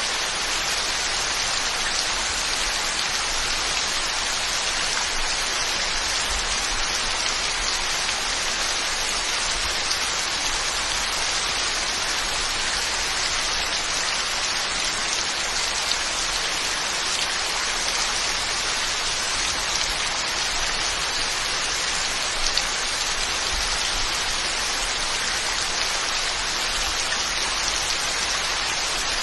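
Heavy rain falling steadily, an even hiss of drops with no break or change.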